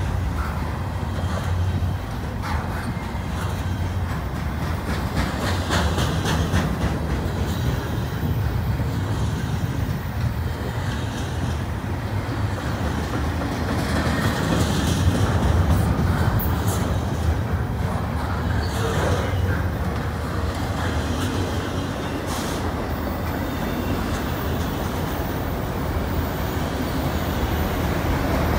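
Freight cars of a CN train rolling past: double-stack container well cars, then autorack cars. Their steel wheels make a steady rumble on the rail, with repeated sharp clicks throughout.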